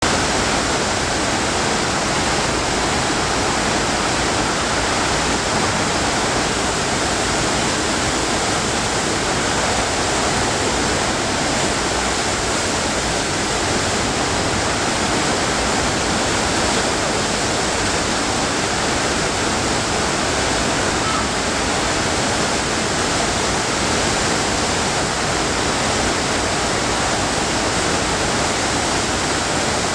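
FlowRider sheet-wave machine's thin sheet of pumped water rushing over the padded ride surface: a loud, steady, unbroken rush of water.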